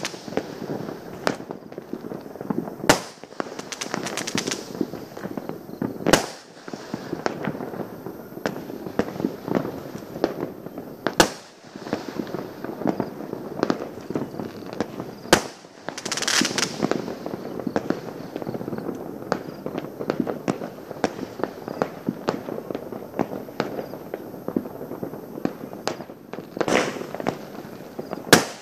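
Many fireworks and firecrackers going off at once: a continuous rattle of bangs and crackles, with louder single bangs every few seconds and a burst of hissing crackle about halfway through.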